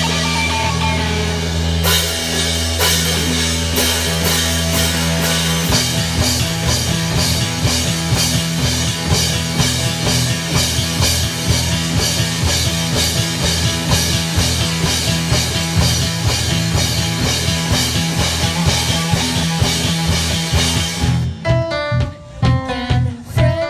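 Rock band playing with drum kit and guitar, in a recording of poor quality. About 21 seconds in, the drums and cymbals drop out, leaving sparse picked guitar notes.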